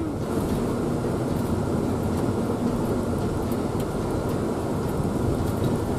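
Steady engine and tyre noise of a 2002 Toyota Sienna van driving through slush, heard from inside the cabin, with a faint steady hum in the first few seconds.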